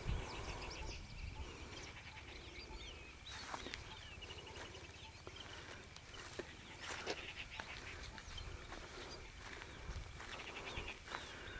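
Several birds chirping and trilling in short, quick calls, over a faint steady high tone and a low rumble.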